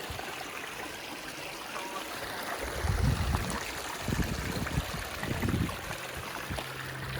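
A small stream running and trickling down toward a lake, a steady rush of water. Several low rumbles come through in the middle.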